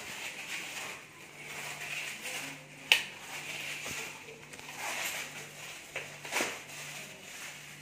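Plastic and foam packing wrap crinkling and tearing as it is pulled off a new bicycle's handlebar, in uneven bursts, with one sharp snap about three seconds in.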